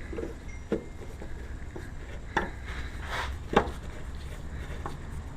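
Hands handling hard parts: a few scattered clicks and knocks, the loudest about three and a half seconds in, with a brief rustle just before it.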